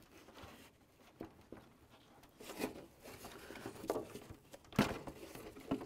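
Plastic headlamp assembly knocking and scraping against the grille and its mounting as it is slid down into place: a few faint clicks and knocks, the sharpest about five seconds in.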